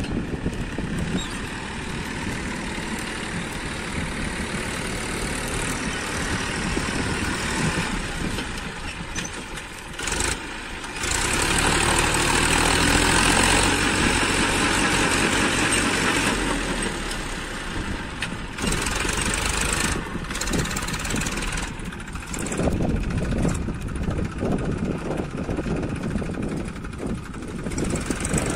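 Massey Ferguson 1035 DI tractor's diesel engine running as it works in sand, louder for several seconds near the middle while it drags its rear rake hard through the sand.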